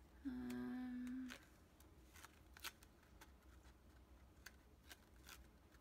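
A woman's voice holds one steady 'hmm' for about a second near the start, then faint scattered rustles and light clicks as paper watercolor sheets are leafed through.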